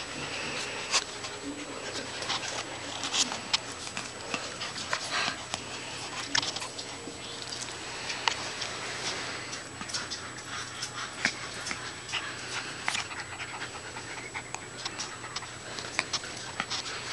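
Samoyed puppy panting right at the microphone, with many short clicks and rubs scattered through as its mouth and fur brush against the phone.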